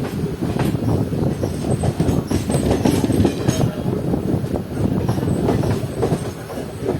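Intercity express passenger train running along the track: a steady low rumble of wheels on rails, broken by short clicks.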